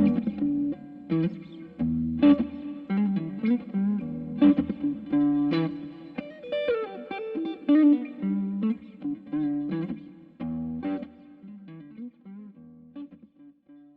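Clifton Vintage Custom Stratocaster-style electric guitar playing a mix of strummed chords and single-note lines, through an amp with some effect. The playing thins out near the end and the last notes die away.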